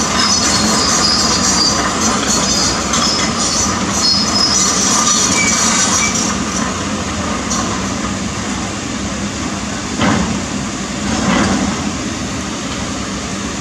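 Kobelco SK200 excavator working in a river: its diesel engine runs steadily under metallic squealing and clanking from the steel tracks and undercarriage. The squeals come thickest in the first half, and two dull thuds come about ten and eleven seconds in.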